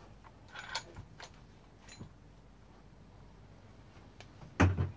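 Handling noises from a Husqvarna 357 chainsaw being worked on during a teardown: scattered light clicks and a short scrape about a second in, then a louder knock near the end.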